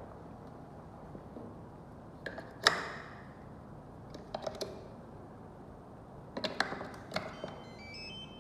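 Hard clicks and knocks of lock hardware being handled and fitted: a few separate handling sounds, the loudest about two and a half seconds in with a brief ring. Near the end comes a short run of faint electronic beeps at stepping pitches.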